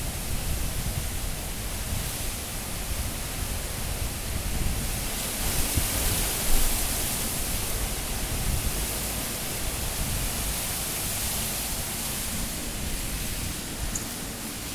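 High cyclone winds blowing in a steady rush, with a gust swelling about five seconds in and easing off after about twelve. Low buffeting from the wind on the phone's microphone runs underneath.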